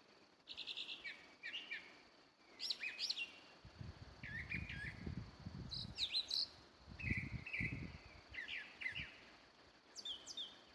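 A songbird singing from a treetop: a run of short, varied chirping and warbling phrases with brief pauses between them. Low rumbling noise comes in twice in the middle.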